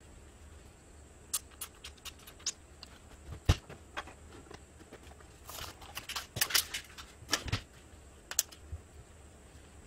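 A scattered run of light clicks and taps. There is one sharper knock about three and a half seconds in, and a busier cluster of taps a little past the middle.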